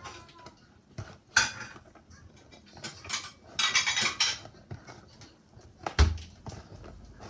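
Metal scissors clinking and snipping as a toy's packaging is cut open, with a scratchy stretch of cutting or rustling a little after the middle and a single heavy thump about six seconds in.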